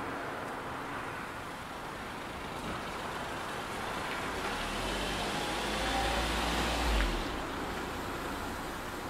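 A road vehicle passing on a nearby road, heard through a window over steady traffic noise. Its low rumble builds, peaks about seven seconds in, then fades away.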